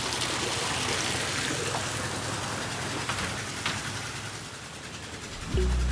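Water from a wall-mounted spillway sheeting down into a swimming pool, a steady splashing rush. It fades a little near the end, when music comes in.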